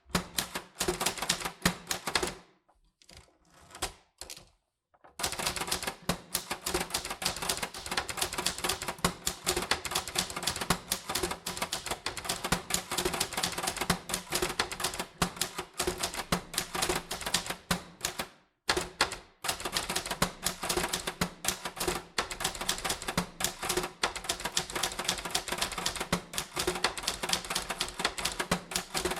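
Typewriter typing: keys striking in quick runs of sharp clacks. There is a pause of a couple of seconds near the start and a brief break about two-thirds of the way through.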